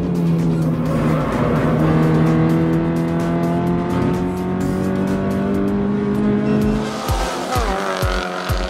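Toyota 86 flat-four boxer engine running through a Fi aftermarket valved exhaust, heard from inside the cabin on track, holding a steady note for several seconds. Near the end the note dips and rises again, under a low, evenly spaced thumping.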